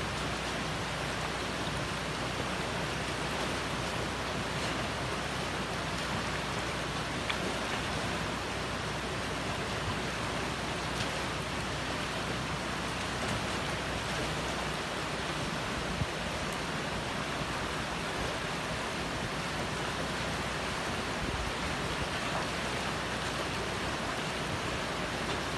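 Fast-flowing, shallow river water rushing steadily.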